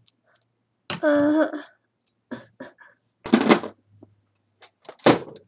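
A person's voice: short stretches of speech that are hard to make out, with a few short clicks and knocks between them.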